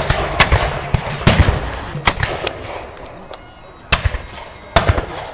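Black-powder flintlock muskets firing in a ragged volley from a line of infantry. About six separate sharp cracks come at uneven gaps while the heavier firing before them dies away.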